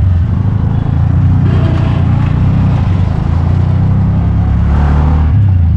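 Steady low rumble of a motor vehicle engine with road noise, heard from on board a vehicle moving slowly in traffic.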